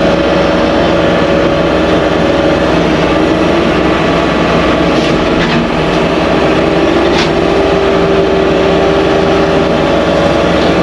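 Skid steer running a Blue Diamond brush cutter attachment through dense overgrowth: a steady, loud engine and cutter drone whose tone shifts lower partway through, with a few sharp cracks near the middle.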